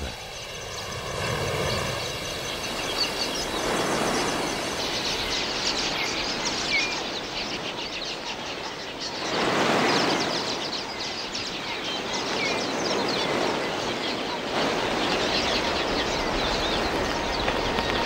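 Huge flock of red-billed queleas: a dense mass of chirping over the rush of many wings. It swells about four seconds in and is loudest about ten seconds in.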